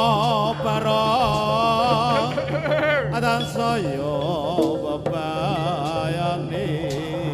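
Live Javanese jaranan music: a wavering, heavily ornamented melody line over gamelan accompaniment and a steady held low tone.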